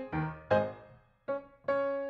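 Background music of piano-like keyboard notes, each note struck and fading. The notes drop out briefly about a second in.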